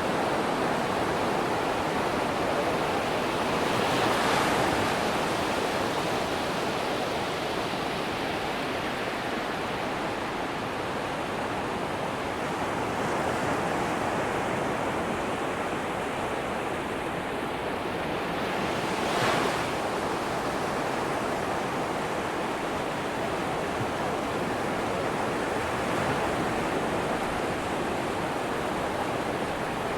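Atlantic Ocean surf on a sandy beach: a steady rush of waves, with a wave breaking a little louder about four seconds in and another, sharper break about nineteen seconds in.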